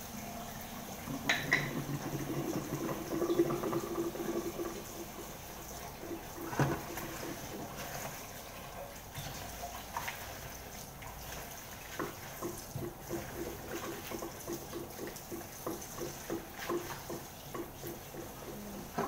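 Kitchen tap running steadily into a stainless steel sink while hands wash watercress in salted water, with a couple of sharp knocks early on. In the later part the washing settles into quick, repeated swishing strokes, about two or three a second.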